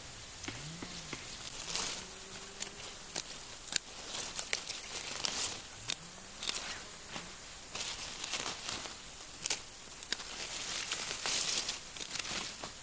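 Leafy greens being pulled from the soil and worked with a small hand hoe: leaves rustling, roots tearing and dirt being knocked off, in short crackly bursts and clicks.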